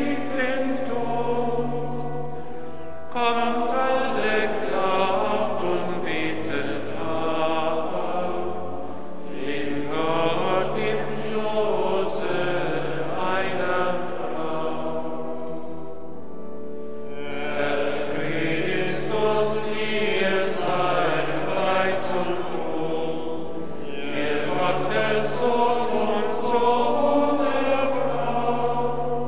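Choir of monks' male voices singing the chant of the Vespers office in long phrases, with a brief pause between phrases about every seven seconds.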